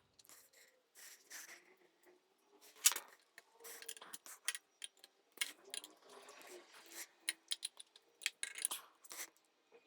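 Small metal parts and fittings clinking and clicking as they are handled and fitted by hand, an irregular run of light taps with some brief squeaky rubbing in the middle.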